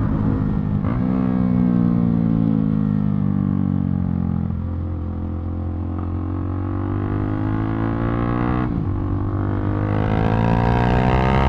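KTM RC390's single-cylinder engine under way. The note falls slowly as the bike rolls off, then climbs steadily as it accelerates. There are brief breaks about a second in and about nine seconds in, like gear changes.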